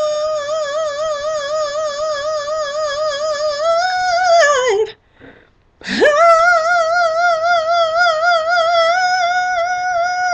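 A woman's solo singing voice holding a long note with a wide, even vibrato. The note swells upward and then falls away about five seconds in. After a short breath, she slides up into another long held note with vibrato.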